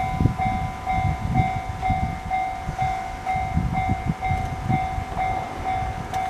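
Electronic level-crossing warning bell ringing at about two strokes a second, over the low rumble and wheel clatter of a two-car electric local train passing over the crossing.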